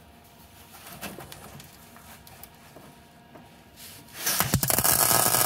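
Small clicks and taps of metal fuel-line fittings and braided hose handled by gloved hands. About four seconds in, a loud rough rustle of a glove rubbing right at the microphone lasts about a second and a half and cuts off abruptly.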